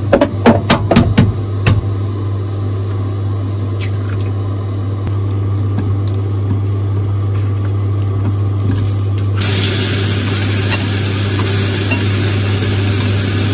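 Sliced king oyster mushrooms frying in a nonstick frying pan. A few sharp clicks and taps come in the first couple of seconds as pieces go into the pan, then a steady sizzle that gets much louder about nine seconds in, over a steady low hum.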